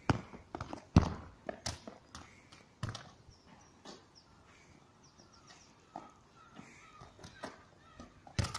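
A football being kicked and bouncing on playground tarmac, with footsteps: a sharp knock about a second in is the loudest, then scattered softer knocks, and a quick run of taps near the end.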